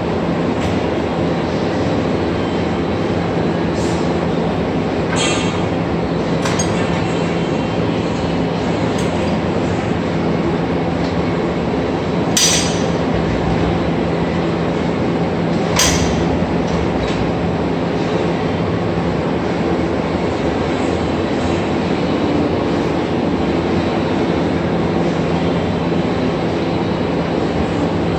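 Milwaukee core drill running steadily with its core bit cutting, a constant motor hum under a grinding noise. Occasional sharp clinks come through, the two loudest a little before and after the middle.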